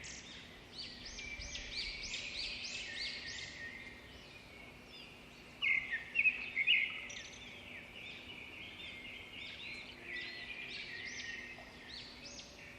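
Birds chirping: many quick, arched chirps that come in dense runs.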